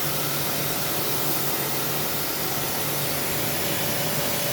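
Steady hiss of a pressure-washer jet spraying water, used to clean an air-conditioner unit.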